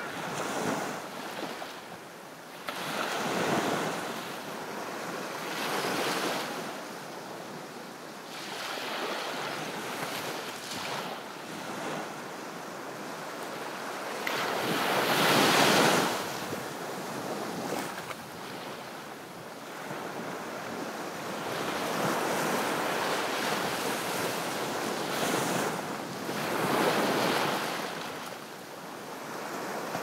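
Ocean surf washing onto a beach, the waves swelling and falling away every few seconds, loudest about halfway through.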